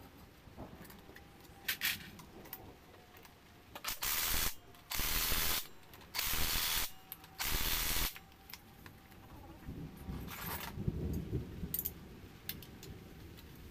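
Socket ratchet clicking in four quick runs of about half a second each, turning fasteners on a scooter engine, with a few fainter tool clicks around them.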